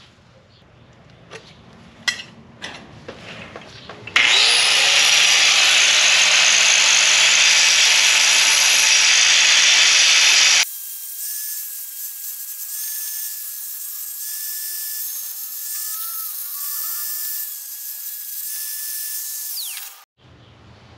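Power tool working sheet steel: about six seconds of loud, steady grinding noise that starts and cuts off abruptly, followed by a thinner, high hiss carrying a steady whistle that stops about a second before the end. A few light clicks and knocks come before the grinding.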